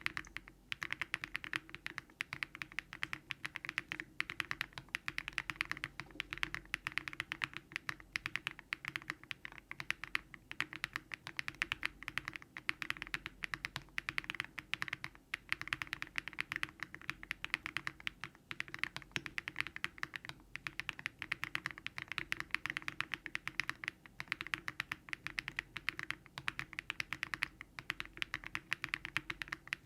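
Steady, fast typing on a Daring Run Polygon-7 custom mechanical keyboard built with Keygeek LM switches, full foam and a PP (polypropylene) plate: a dense, unbroken stream of keystroke clicks.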